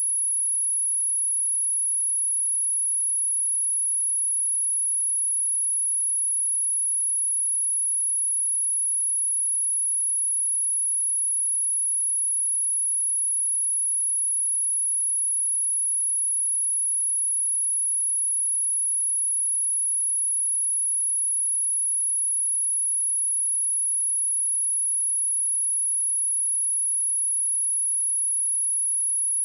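Pure 10511 Hz sine-wave test tone, a single steady high-pitched whistle that never changes, used to test speakers and shake water and dust out of them.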